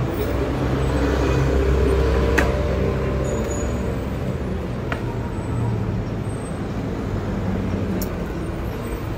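Road traffic: a motor vehicle's engine running close by, swelling over the first couple of seconds and then easing, with a few sharp clicks.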